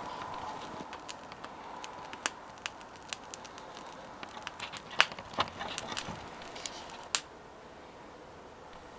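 Small wood fire crackling in a homemade firebox-style twig stove, with scattered sharp pops, the loudest about five and seven seconds in.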